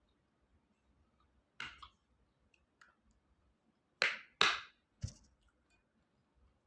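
A person eating, with a few short, sharp bites or crunches; the loudest two come close together about four seconds in.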